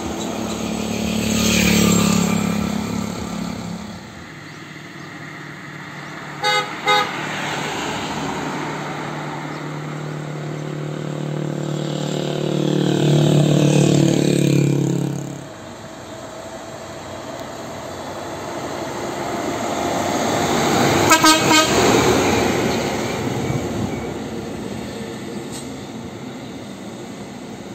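Road traffic: a tour bus and trucks driving past one after another, each engine growing louder as it approaches and falling away as it passes. Two short horn toots come about a quarter of the way in, and a quick run of horn toots about three quarters through.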